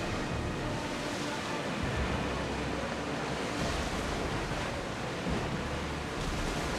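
Steady rushing of sea waves, with wind gusting across the microphone in a low rumble.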